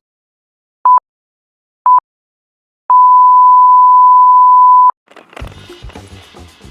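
Electronic countdown beeps: short beeps of one steady pitch about once a second, then a final long beep of about two seconds. Music starts right after the long beep, near the end.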